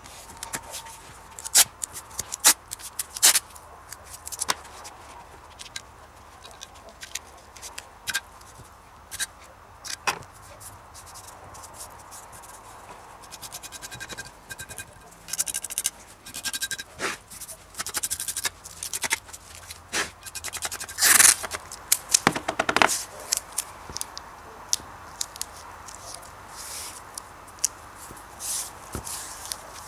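Hand work on parts of an old parquet polisher: irregular scraping with scattered sharp clicks and knocks. The loudest cluster of strokes comes about two-thirds of the way through.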